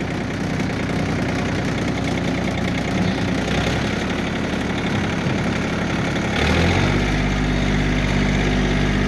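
A machine's engine running, then about six and a half seconds in it revs up and holds a higher, steady note.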